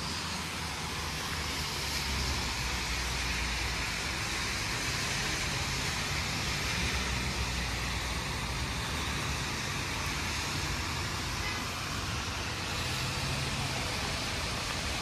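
Steady rain and car traffic on wet roads: an even hiss over a low rumble.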